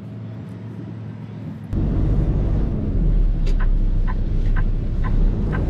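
Cummins X15 diesel of a Kenworth T880 dump truck pulling hard under acceleration through its Allison automatic, heard from inside the cab. It runs quieter for the first second and a half, then jumps abruptly louder. Through the second half there is a light ticking about twice a second.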